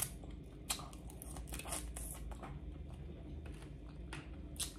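Boiled crawfish being eaten by hand close to the microphone: scattered short clicks and crackles as the shells are sucked on and pulled apart.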